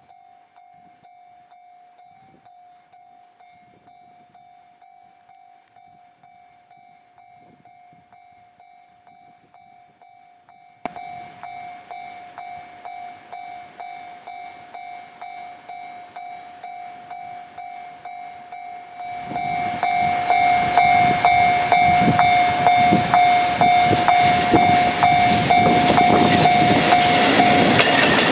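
Japanese level-crossing warning alarm ringing in an even, pulsing rhythm, growing suddenly louder about a third of the way in. In the last third the rising rumble of an approaching freight train, hauled by an EF65 1000-series electric locomotive, builds up under it and becomes the loudest sound.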